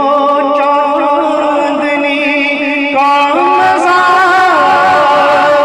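A man singing a naat into a microphone, holding long wavering notes, then stepping up to a higher phrase about three seconds in.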